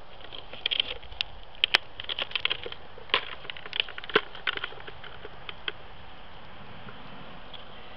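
Handling noise from a small camera being carried and moved: a scatter of irregular sharp clicks and rustles over a faint steady hiss, thickest in the first half and thinning out after about five seconds.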